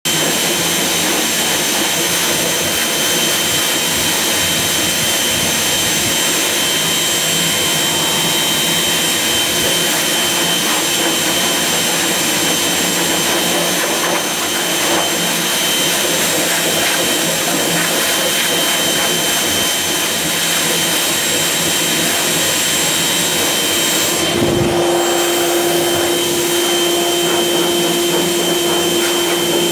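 Hose-fed pet blow dryer blowing a steady rush of air, with a high motor whine over it. About 24 seconds in the sound briefly changes, and a steady low hum holds after that.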